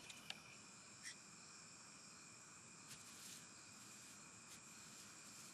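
Faint night ambience: a steady high-pitched chirring of night insects, with a few faint ticks about one and three seconds in.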